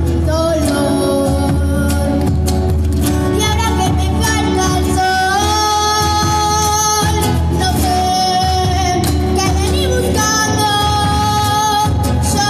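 A child singing a song into a microphone over an amplified sound system, with acoustic guitar accompaniment, holding long notes.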